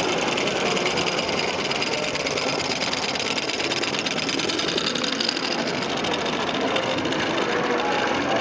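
Two-cylinder Stirling hot-air engine locomotive running along its track, its pistons and linkage making a fast, steady mechanical clatter.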